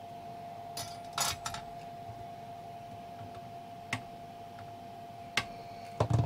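Side cutters snipping the excess leads of newly soldered capacitors on an ECU circuit board: a handful of sharp clicks, the loudest about a second in, then a duller knock near the end. A faint steady whine runs underneath.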